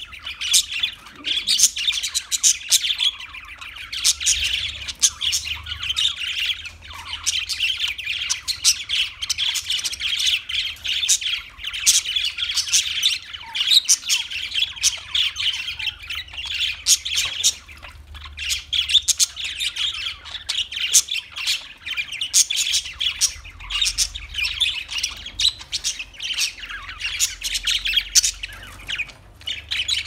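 A flock of budgerigars chattering without pause: many overlapping chirps and warbles with short squawks.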